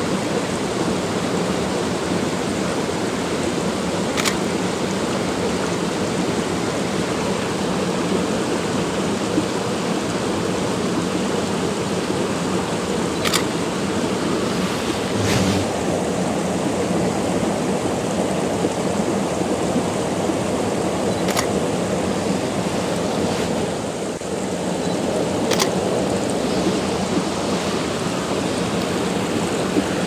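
Small rocky stream cascading over boulders: a steady rush of running water, with a few faint clicks.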